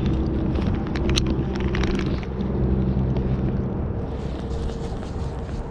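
Boat motor running with a steady low hum that fades away after about two seconds, over wind noise on the microphone; a few sharp clicks about a second in.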